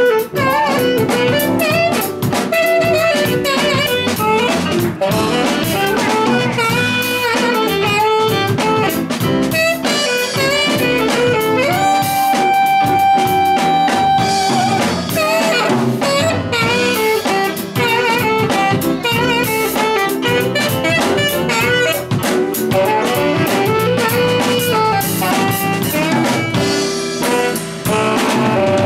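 Instrumental break of a blues song: a small band with drum kit plays under a lead melody that bends between notes and holds one long note about halfway through.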